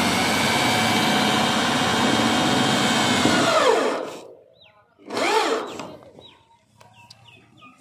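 Electric drill with a hex socket bit driving a self-drilling screw through a steel roofing sheet, its motor running steadily under load, then winding down in pitch as the screw's washer seats against the sheet about four seconds in. About a second later the motor briefly spins up and winds down again.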